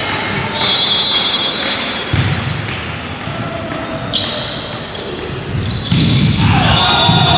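Volleyball rally in an echoing sports hall: sharp hits on the ball and high shrill squeaks or whistles, then the crowd breaks into loud cheering about six seconds in as the point is won.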